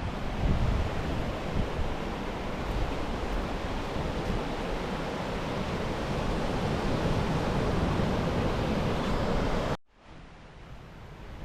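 Surf washing onto a sandy beach in a steady wash, with wind buffeting the microphone in low rumbles. The sound cuts off sharply about ten seconds in and comes back quieter.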